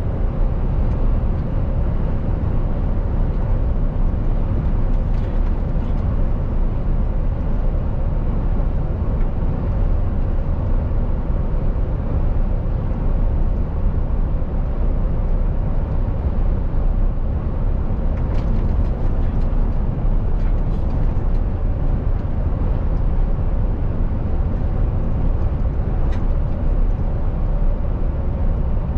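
Mercedes-Benz Actros truck cruising at a steady motorway speed, heard from inside the cab: a constant engine drone mixed with tyre and road noise, with a faint steady hum. A few faint clicks come about two-thirds of the way through and again near the end.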